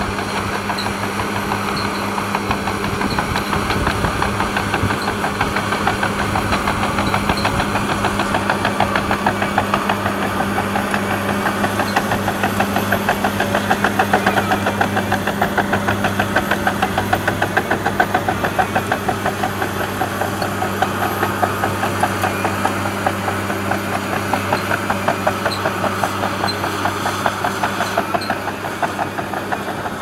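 Komatsu D65PX crawler dozer's diesel engine running steadily under load as the blade pushes soil, with a fast, even clatter of its steel tracks over the engine sound.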